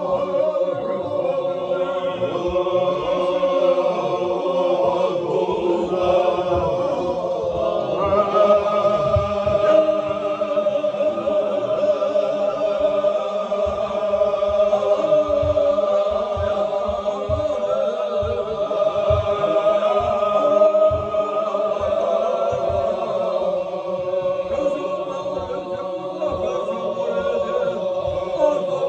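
Chechen Sufi zikr: a group of men chanting together in a slow, drawn-out, held melody. The chant moves to a higher pitch about eight seconds in.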